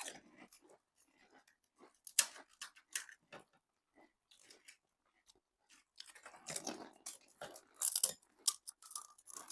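Crisp pani puri shells being bitten and chewed: irregular crunches with quiet gaps, a sharp crunch about two seconds in and a dense run of crunching near the end.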